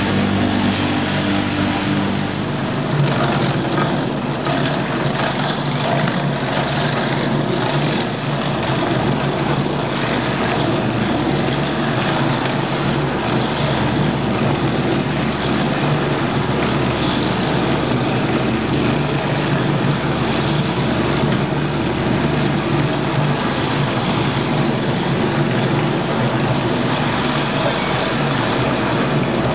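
Mainca CM-41 bowl cutter running steadily, its knives chopping meat paste in the turning bowl. A loud, even machine noise whose hum drops to a lower note a little over two seconds in.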